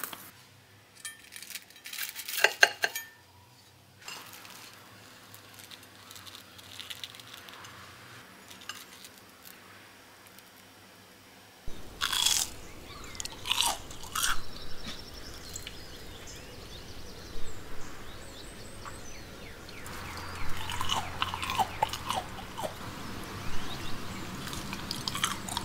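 Crisp breadcrumb crust of fried potato cheese sticks crunching, in repeated bursts like bites and chewing. A few light clicks come first, and the crunching sets in about halfway through and grows denser near the end.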